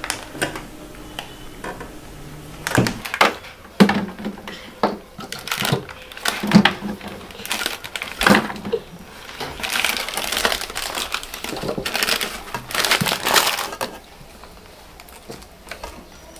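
Food packets and drinks being handled and set down in a fridge: plastic snack wrappers crinkling and rustling, with a string of knocks and clicks as items are put in place.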